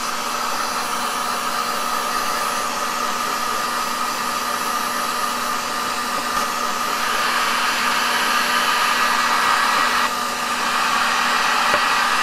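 Parkside electric heat gun blowing steadily on its minimum setting, an even rush of air with a faint steady whine from its fan, as it shrinks a heat-shrink sleeve onto an 18650 lithium-ion cell.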